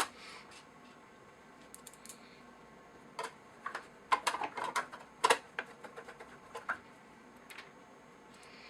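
Scattered small clicks and taps of a screwdriver and screws being worked as the telescope's base cover plate is screwed back on, thickest in the middle of the stretch with quieter gaps at the start and end.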